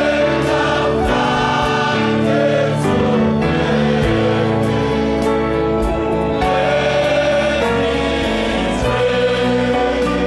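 Gospel choir music: a choir singing over a steady beat.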